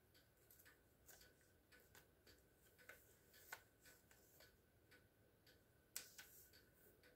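Near silence: faint room tone with light ticks about twice a second and one sharper click about six seconds in.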